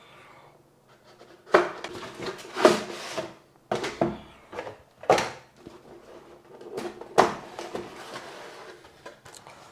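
Cardboard graphics-card box being opened and its packaging handled: a run of knocks, slides and rustles, several of them loud and sudden, after a quiet first second or so.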